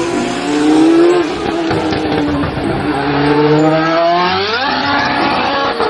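Racing car engine sound effect, the engine note wavering and then revving up sharply about four and a half seconds in.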